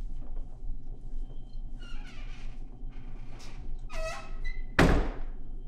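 A door creaking open, with several short squeaks from its hinges, then a loud thud near the end.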